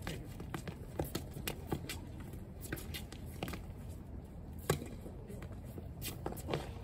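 Tennis ball bounced a few times on a hard court, then one sharp racket hit on the serve a little past halfway, the loudest sound; a fainter hit follows about a second and a half later.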